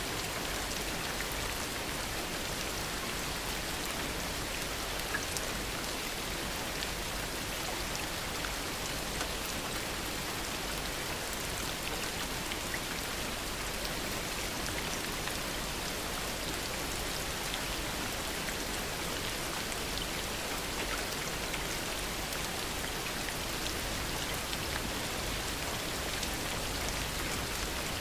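Heavy rain falling steadily, a dense even hiss of drops with small individual drop ticks scattered through it.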